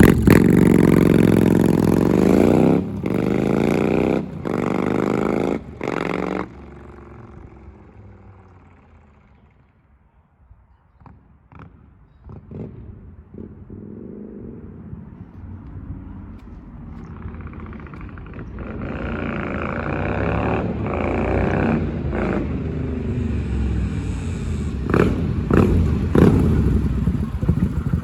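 2008 Kawasaki Vulcan 900 Custom V-twin with a Cobra aftermarket exhaust accelerating away through several upshifts, its sound fading into the distance. It then comes back and grows louder again.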